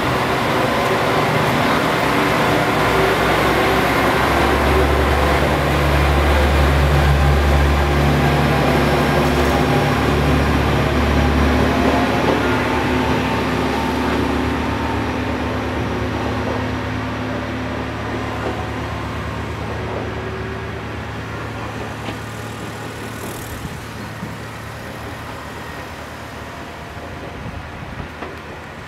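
Diesel railcar, a JR KiHa 40-series single car, pulling away from a station. Its diesel engine drones under power, loudest in the first half, then the sound fades steadily as the car runs off into the distance.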